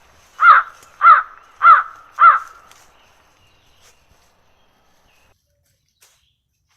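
A crow cawing four times in an even series, one caw about every 0.6 s, each short with a rise and fall in pitch.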